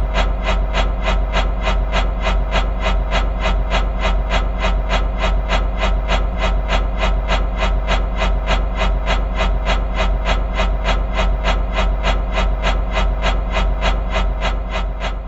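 Spinning fan blades whooshing in an even rhythm, about four whooshes a second, over a steady low hum. The sound begins to fade near the end.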